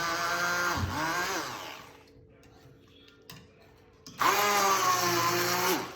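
Electric blender grinding cooked boneless chicken in short runs. One run winds down about a second and a half in, and after a pause the motor starts again about four seconds in, running for nearly two seconds before it stops.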